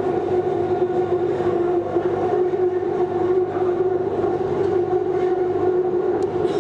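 Bangkok Skytrain carriage running along its elevated track, heard from inside the carriage: a steady whine at an even pitch over the low rumble of the running gear.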